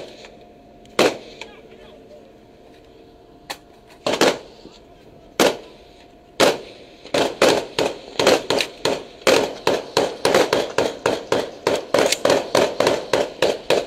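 Rifle shots fired from a ship's deck: a few single cracks a second or so apart, then rapid fire of about four shots a second from about halfway through.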